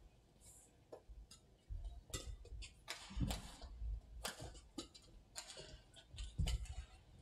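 Badminton rally: sharp, irregular clicks of rackets striking the shuttlecock, with heavier thuds of the players' footwork on the court.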